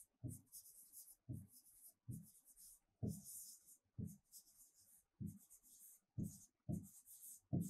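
Marker pen writing on a whiteboard: a string of short, faint scratching strokes, about one to two a second, as a word is written out.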